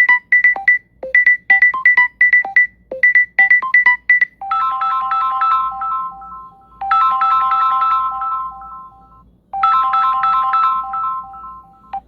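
Samsung Galaxy S23 Ultra ringtones playing. First comes a quick repeating figure of short electronic notes, then about four seconds in a sustained chiming chord pattern that repeats three times.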